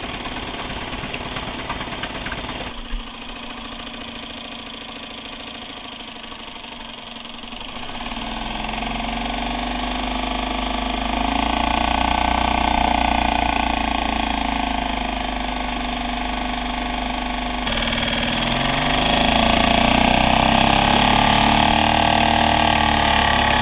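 A 2010 Suzuki 2.5 HP four-stroke outboard motor running on a test run after a repair of its broken water pump tube, with cooling water coming through. It runs steadily at first, then gets louder and faster from about a third of the way in, and speeds up again near the end.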